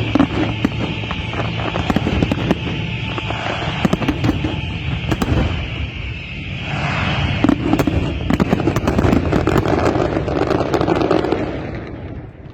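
Fireworks going off in rapid succession: a dense crackle of many sharp bangs with a high hiss in the first half, dying down near the end.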